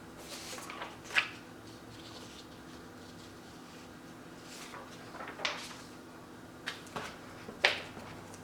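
Handling of a large photo yearbook: a few short paper-and-card rustles and light knocks as it is leafed through and set down, the sharpest about a second in and near the end, over a steady low hum.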